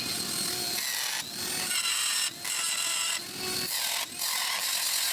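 Angle grinder grinding out a crack in a steel equipment frame to prepare it for welding: a steady motor whine with the hiss of the disc cutting metal, in several passes with brief lifts off the work.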